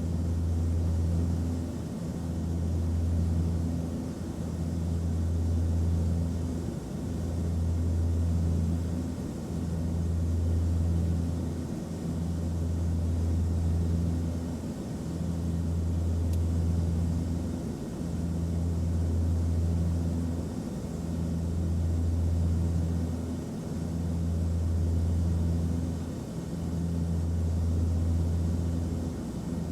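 Airliner cabin noise: a steady low drone of engines and airflow, with a deep hum that swells and fades about every two seconds.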